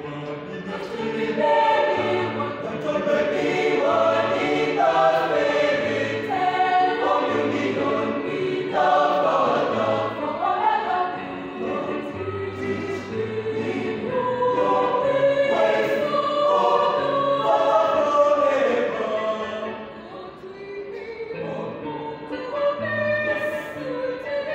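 Mixed youth choir of female and male voices singing a gospel piece in harmony under a conductor, with a quieter passage near the end.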